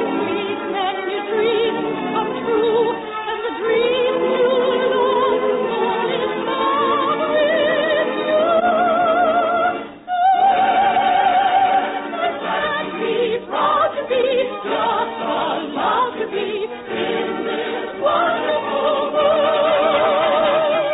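Operatic singing with orchestral accompaniment, the voices held on long notes with wide vibrato; the music breaks off briefly about ten seconds in.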